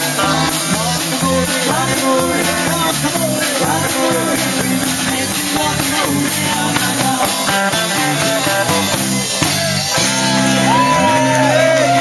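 Live band playing loud music: electric guitar over a steady beat, with a singer's voice on top.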